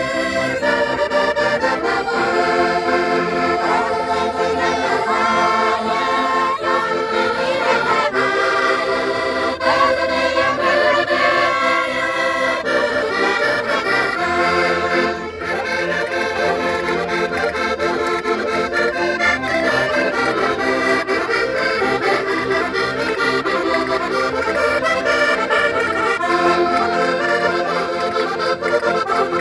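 Concertinas playing a traditional folk tune, with a brief drop in level about halfway through.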